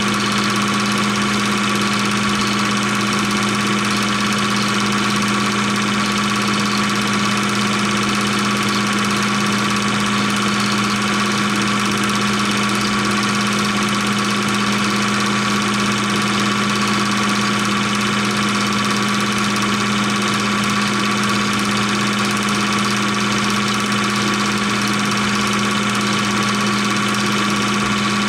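16mm film projector running: a steady, unchanging mechanical hum with a low tone and a higher whine held throughout.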